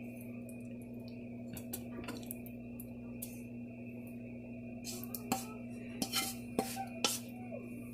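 Light clicks and taps of a wooden spatula against a china plate while fish curry is arranged on it, sparse at first and more frequent about five seconds in, over a steady low hum.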